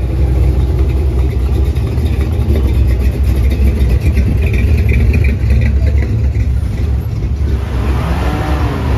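Hot rod roadster and other classic cars driving slowly past, engines running with a loud, deep rumble. Near the end a rising-then-falling sweep as one passes close.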